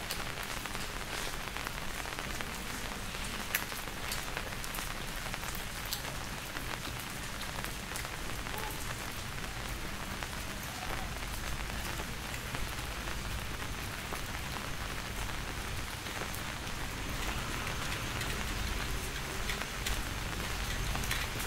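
Steady rain falling, with scattered sharp drip ticks; one louder drop lands about three and a half seconds in.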